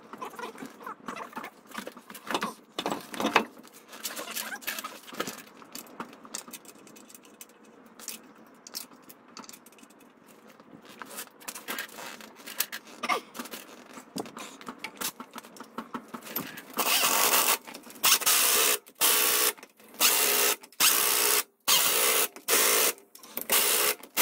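A truck wheel being mounted on its hub: scattered clinks and knocks of the wheel and lug nuts for about the first sixteen seconds. Then an impact wrench runs in about seven short loud bursts as it drives the lug nuts on.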